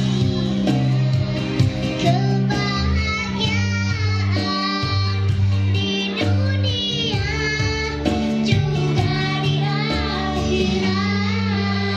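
A young girl singing a slow song over backing music with a steady bass line; her voice is hoarse from a cough.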